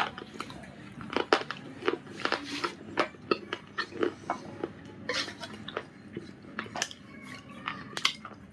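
Close-up crunching of Punjab biscuit pieces with white khadi paste: irregular sharp crackles and snaps, several a second, as the brittle pieces are bitten and broken.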